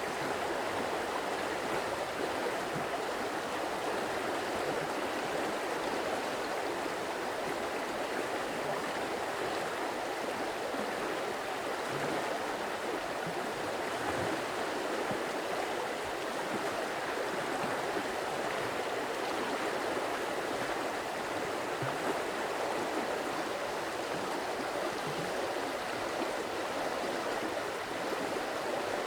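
Stream water running steadily, an even rushing and babbling.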